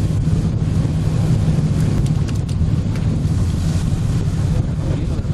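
Steady low engine rumble with wind buffeting the microphone, and a few faint clicks about two seconds in.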